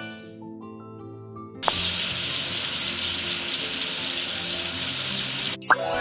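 Soft music notes, then about a second and a half in a loud, steady hiss starts suddenly and runs for about four seconds over quieter music before cutting off.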